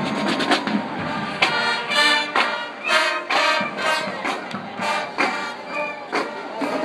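Marching band playing: sustained brass chords over drum hits.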